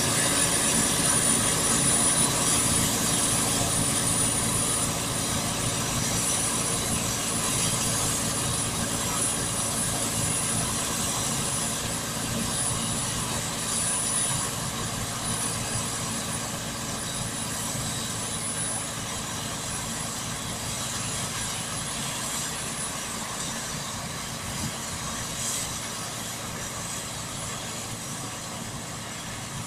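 SK-5 Niva combine harvester running under load while harvesting, its engine, threshing machinery and straw chopper making a steady mechanical din with a thin high whine on top. It grows steadily fainter as the combine moves away.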